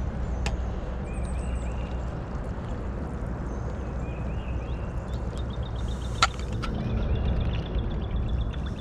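Steady water noise around a wading angler while a small bluegill is reeled in on a light spinning rod, with scattered light clicks and one sharp click about six seconds in.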